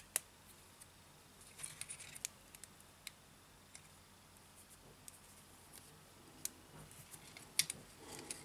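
Small metal scraper blade scraping leftover adhesive tape and silicone off a phone's metal frame: faint, scattered short scratches and clicks in small clusters.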